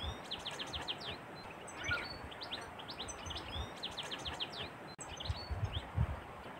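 Small birds chirping: quick runs of short, high, falling notes, with a similar phrase coming back every few seconds. Soft low thuds of a knife cutting raw pork on a wooden board come in during the second half.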